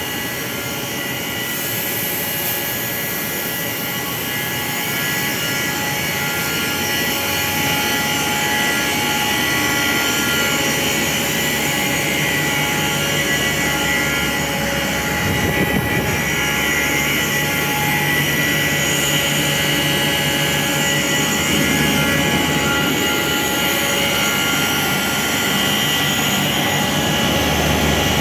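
Industrial machinery running steadily: a constant whirring hum with several steady whining tones. About halfway through, a lower hum joins in.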